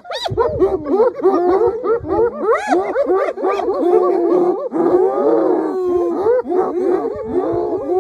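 A pack of spotted hyenas calling together: many overlapping high squeals and giggles, each rising and falling in pitch, in an unbroken excited chorus.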